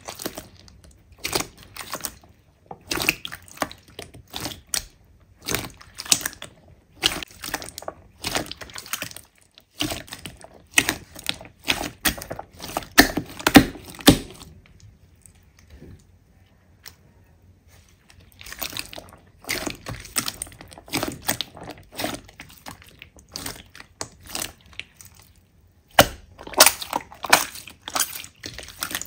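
Hands squishing and pressing slime: irregular wet squelches, pops and crackles, with a pause of a few seconds about halfway through.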